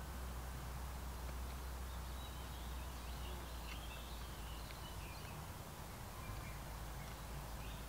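Birds chirping faintly and sparsely over a steady low rumble, with short high calls clustered in the middle of the stretch and again near the end.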